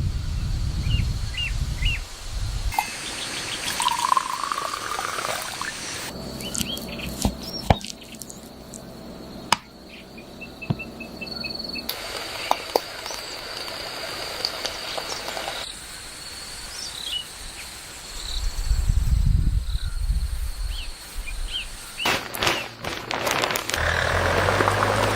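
Outdoor nature ambience that changes abruptly every few seconds, with short bird chirps, a quick insect-like trill, scattered sharp clicks and stretches of low rumble.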